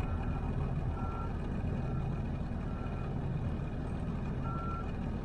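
A truck's reversing alarm beeping about once a second, some beeps fainter than others, over the steady low rumble of an idling engine.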